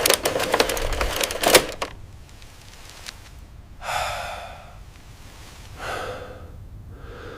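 Telegraph key clicking in a rapid, irregular run for about two seconds, then two breathy sighs, about four and six seconds in.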